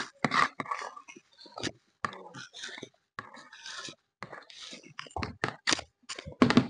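Metal spoon scraping and knocking against the inside of a plastic tub in short, irregular strokes as gelatin is scooped out.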